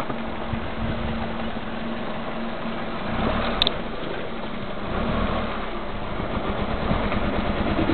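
Car engine running as the car creeps over a rough dirt track, heard from inside the cabin, with low rumbling from the bumps. Near the end the engine note steps up as the car gets stuck.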